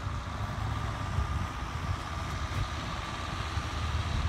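Tractor engine running steadily as it pulls a carry-scraper across the field, heard as a low rumble with a faint steady higher tone over it.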